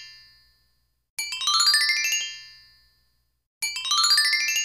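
Intro jingle: a fast rising run of bright, chime-like keyboard notes that ring on and fade, played again about a second in and once more near the end, where it cuts off.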